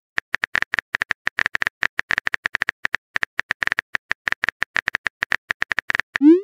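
Phone keyboard typing sound effect: rapid, irregular key clicks, about eight a second, ending in a short, loud rising swoop.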